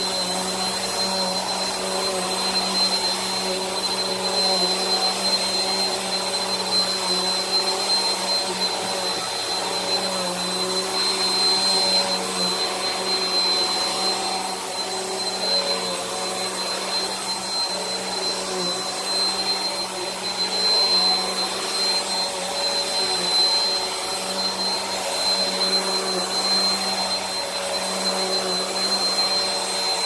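Bissell Powerforce Helix bagless upright vacuum running while pushed over carpet: a steady motor drone with a thin high-pitched whine on top, its pitch wavering slightly.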